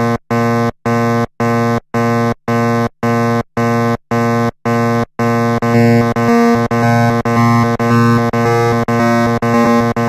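Harsh electronic warning buzzer, a pitched tone pulsing on and off about twice a second. From about halfway the pulses grow a little louder and run almost together: a mock emergency alert's warning signal.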